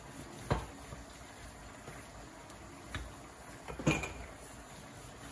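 Wooden rolling pin rolling out filled dough on a floured countertop, with three short knocks, the loudest near four seconds in.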